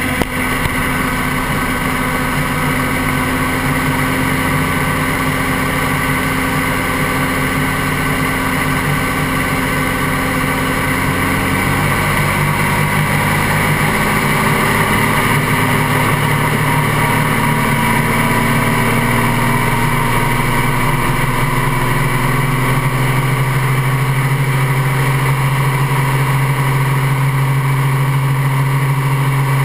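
Helicopter engine running on the ground with the main rotor turning. From about twelve seconds in, its pitch rises slowly and steadily, and it gets a little louder as the rotor speeds up.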